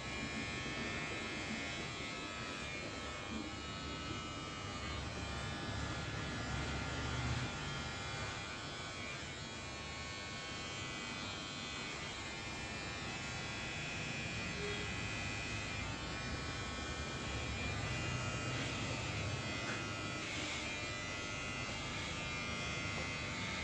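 A small electric motor buzzing steadily. It switches on right at the start and keeps an even pitch throughout.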